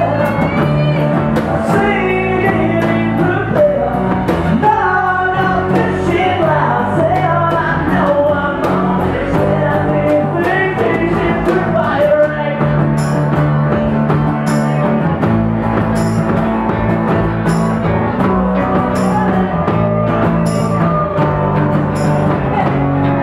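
Live pop-punk band playing an acoustic set: strummed acoustic guitar over a drum kit, with singing through the first half. From about halfway a cymbal is struck on a steady beat.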